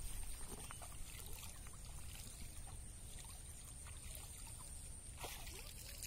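Faint outdoor pond-side ambience: a steady low rumble and a steady high-pitched drone, with a few faint chirps and a brief scuff about five seconds in.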